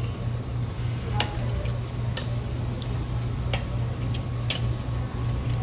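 A metal fork clicking against a plate, a handful of light clicks at uneven intervals, over a steady low hum.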